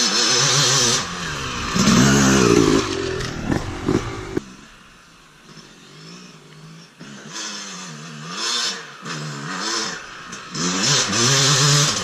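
Dirt bike engine revving up and down over and over as it rides around, dropping away for a few seconds in the middle and then coming back.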